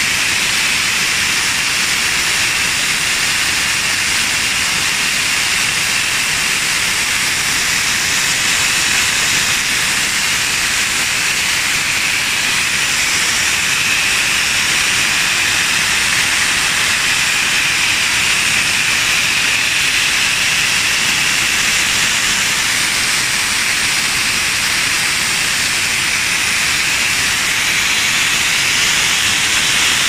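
Natural gas under pressure jetting from a gas wellhead's side outlet where the blanking plug has burst: a loud, steady, high hiss that never lets up.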